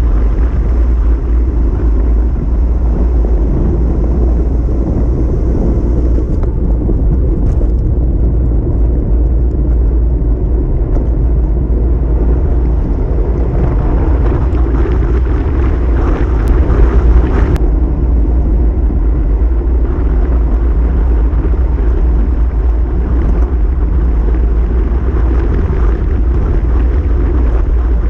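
Wind rushing and buffeting on the microphone of a camera on a moving bicycle, a steady rumble with a louder, rougher stretch about halfway through. Crickets trill faintly and steadily behind it for the first several seconds.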